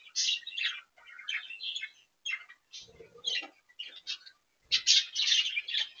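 Budgerigars chattering: a run of quick, high chirps and warbles in short bursts, loudest about five seconds in.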